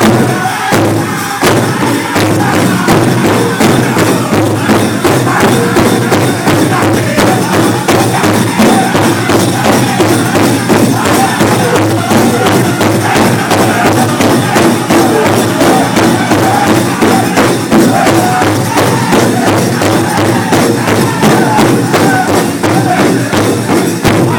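Powwow drum group singing a chicken dance song in unison over a steady, loud big-drum beat.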